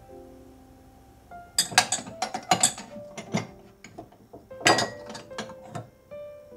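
Ceramic cups clinking and knocking against each other and the cupboard shelf as they are handled and taken down, the knocks in two clusters with short ringing after each, over a few soft held notes of background music.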